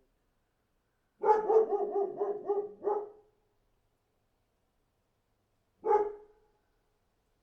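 Large dog barking: a quick run of about seven deep barks, a pause of a few seconds, then one more single bark.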